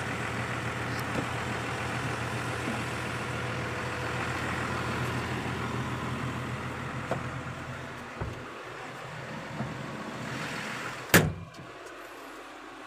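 Farm tractor engine running steadily at idle, with a few knocks around the cab. About eleven seconds in there is a loud thump as the cab door shuts, and the engine becomes a quieter, muffled hum heard from inside the cab.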